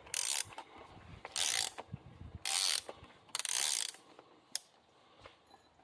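Socket ratchet clicking in four short bursts about a second apart as it is worked back and forth, unscrewing the oil filter housing cap, then a single click near the end.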